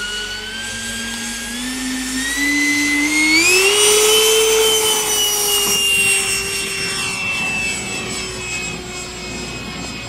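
The 130 mm electric ducted fan of a large 12S RC jet spooling up for takeoff: a whine that rises in pitch in steps over the first four seconds. It is loudest around the middle as the jet lifts off, then holds and sinks slowly in pitch as the jet climbs away.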